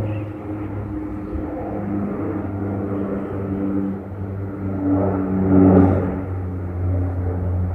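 Saab 340B twin turboprop climbing out after takeoff: a steady propeller hum with several even tones, swelling to its loudest about six seconds in.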